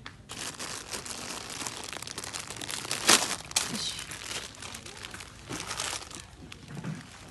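Plastic packaging crinkling and rustling close to the microphone, with one louder crackle about three seconds in. It fades out near the end.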